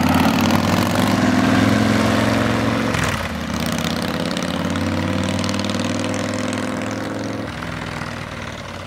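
Cruiser motorcycle engines pulling away. The engine note breaks briefly about three seconds in at a gear change, then climbs slowly under throttle and drops near the end as the bikes fade into the distance.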